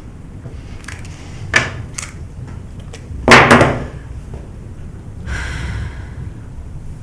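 A few sharp knocks and thuds: two lighter ones early, then a loud cluster of impacts a little over three seconds in, followed by a short noisy rush near the end.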